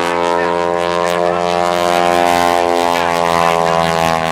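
Grumman Showcat aerobatic biplane's engine and propeller droning steadily overhead.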